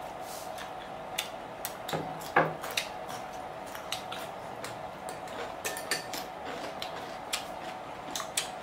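Table-side eating sounds: scattered light clicks and taps of plastic chopsticks against bowls and a serving tray, with crunchy vegetables being chewed.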